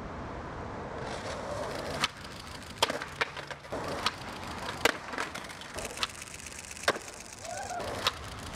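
Skateboard wheels rolling on concrete, broken by about eight sharp clacks of the board hitting the ground and ledges, roughly one a second. These are failed attempts at a trick, with the board flying out from under the skater as he bails.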